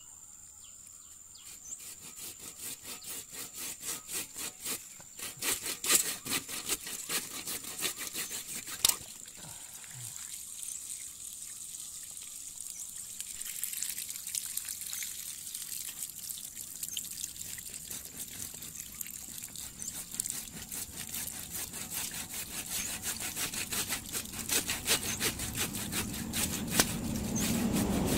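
A hand-held saw blade cutting back and forth through a black polyethylene water pipe in quick, regular strokes. The sawing pauses briefly about a third of the way in. Water left in the pipe dribbles out of the cut.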